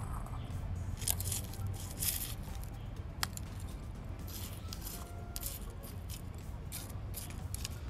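Gritty succulent soil mix scraping and crunching as a plastic scoop pokes and presses it into a small pot around the plant. It comes in several short scratchy bursts, with one sharp click about three seconds in, over a steady low hum.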